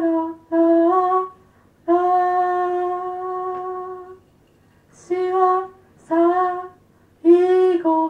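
A woman singing unaccompanied, a slow melody in short held notes with pauses between them; one note in the first half is held for about two seconds before fading.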